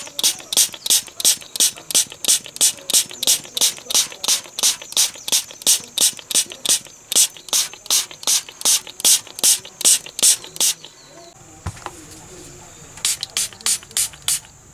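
Hand trigger spray bottle pumped rapidly, wetting a rusty cleaver blade: short hissing sprays, about three or four a second. They stop about eleven seconds in and resume for a short run near the end.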